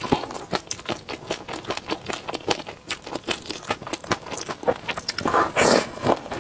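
Close-miked chewing of food in peanut sauce: a rapid run of mouth clicks and smacks, with a louder spell of chewing about five seconds in.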